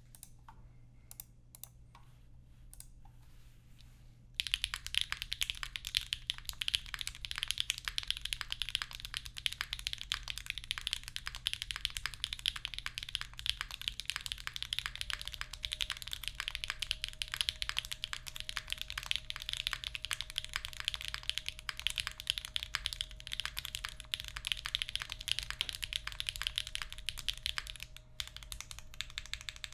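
Mechanical keyboard with Gateron Sillyworks switches in an aluminum float plate being typed on. A few single keystrokes come first, then fast, continuous typing from about four seconds in.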